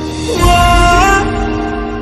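Background music: an instrumental break in a slow, tender Hindi song, with a bass and a held melody line coming in about half a second in.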